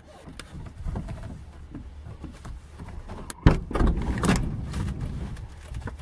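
Plastic interior trim panel of a Chrysler Town & Country sliding door being pressed and knocked into place so its clips snap in: scattered small plastic clicks and rustling, with two louder knocks about three and a half and four and a quarter seconds in.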